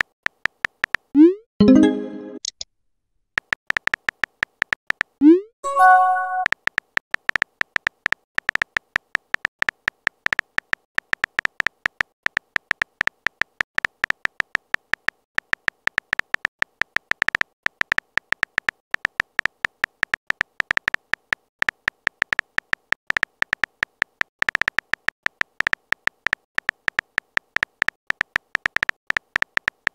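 Messaging-app sound effects: a rising swoosh and then a short chime as new messages pop up, followed by a fast, steady run of keyboard tap clicks as a long message is typed out letter by letter.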